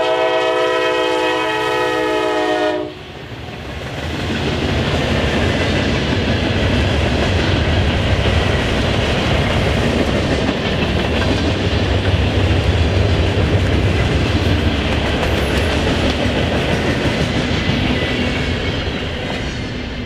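Diesel freight locomotive's air horn sounding a chord, cutting off about three seconds in, followed by the steady rumble and rattle of freight cars' wheels rolling past on the rails.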